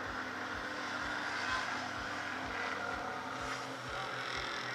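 Steady mechanical drone of vehicle engines around a race-circuit paddock, with soft low thuds repeating about three times a second.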